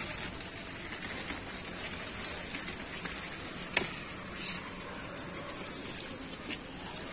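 Sugarcane stalks being cut at the base with a blade, with rustling among the dry cane leaves and one sharp crack about four seconds in as a stalk is cut through.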